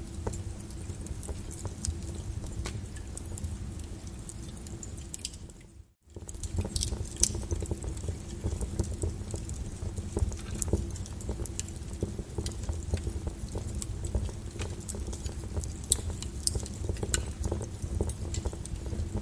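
Wood fire crackling with irregular sharp pops over a steady low rumble and rain patter. The whole bed cuts out briefly about six seconds in and then comes back.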